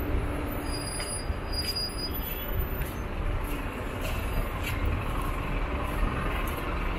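Street traffic noise: a steady low rumble of vehicle engines on a city street.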